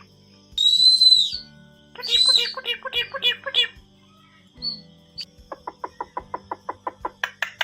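Myna bird calling: a long clear whistle, then a falling whistle that breaks into a run of quick notes, and from about five seconds in a long string of rapid short clicking notes, several a second.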